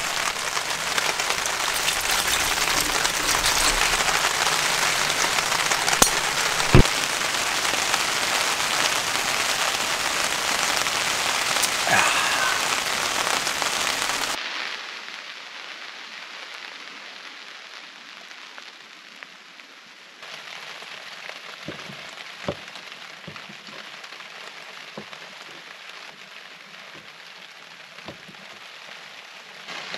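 Heavy rain falling steadily on a tarp shelter, with a couple of sharp knocks in it. About halfway through it cuts to a much quieter background with a few scattered taps of a knife on a wooden cutting board.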